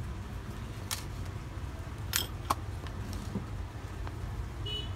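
Rifle scope and its packaging handled by hand: a few sharp clicks and rustles, about one, two and two and a half seconds in, over a steady low hum.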